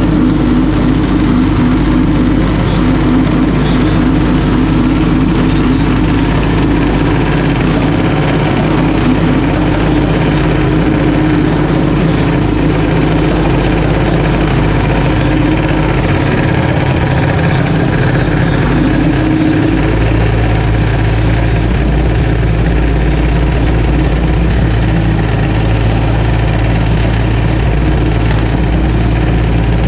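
Junior dragster's single-cylinder engine idling steadily, heard up close from the car itself, with a slight change in its low note about 20 seconds in.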